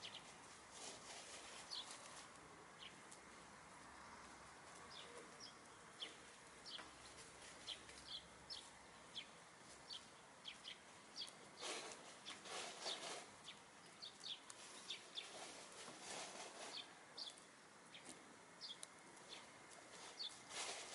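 A small flock of hens foraging, quietly clucking and giving short high chirps, with a few louder noisy bursts around the middle and near the end.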